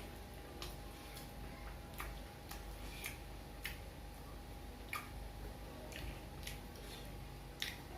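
Mouth sounds of someone chewing fried snacks: soft wet clicks and smacks, about one or two a second, uneven in spacing.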